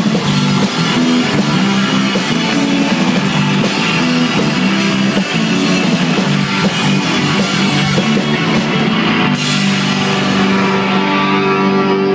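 Live rock band playing: electric guitars, bass guitar and drums with regular cymbal strokes. About nine seconds in a crash lands, the drumming stops and the band holds a chord that rings on.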